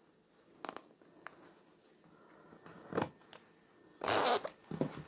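Zipper sliders being fitted onto a zipper's teeth and worked by hand: a few small clicks, then a short rasp of a slider pulled along the zip about four seconds in.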